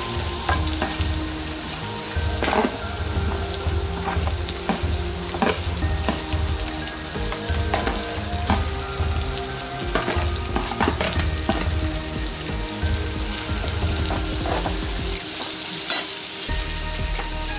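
Chopped small onions sizzling as they fry in hot oil in a kadhai, with a steady hiss. A steel spoon stirs them, clinking and scraping against the pan again and again.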